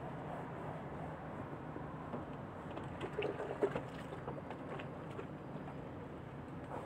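A stubborn stain being scrubbed out of a thick shag carpet by hand: a soft, steady rubbing noise.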